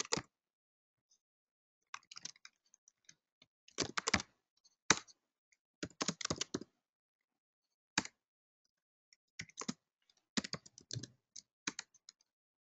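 Typing on a computer keyboard: short bursts of keystroke clicks separated by pauses.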